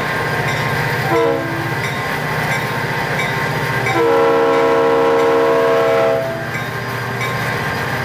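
Air horn of Florida East Coast diesel locomotive 704 sounding a brief chord about a second in, then a long multi-tone blast for about two seconds from midway, over the steady low rumble of the moving train.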